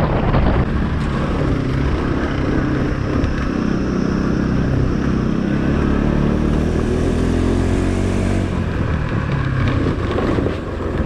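Motorcycle engine running under way over a rough gravel road, its pitch climbing between about four and eight seconds in as the bike speeds up.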